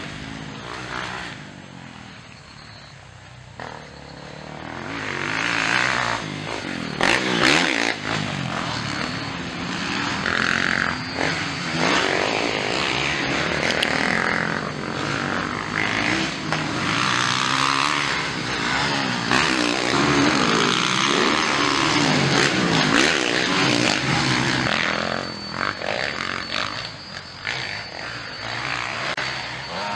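Motocross dirt bike engines revving as riders race around the track, the pitch rising and falling with throttle and gear changes. The sound drops lower a couple of seconds in, then grows loud from about six seconds as bikes come close and stays loud.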